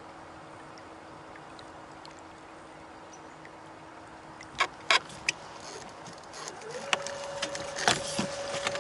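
A kayak's motor running with a steady hum; after a few sharp knocks about five seconds in, its pitch climbs and holds higher as it speeds up, and water rushes and splashes along the hull with more knocks near the end.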